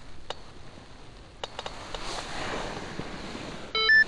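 A short electronic beep near the end, two tones in quick succession, the second higher; it is the loudest sound here, over a few faint clicks and light outdoor noise.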